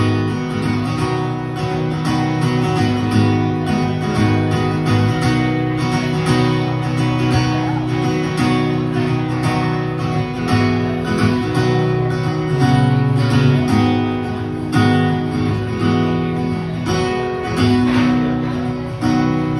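Acoustic guitar strummed in a steady rhythm: an instrumental passage with no singing.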